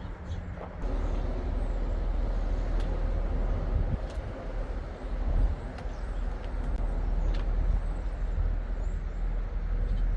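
Gas chainsaw engine running steadily with a low hum, with no sweeps up or down in pitch.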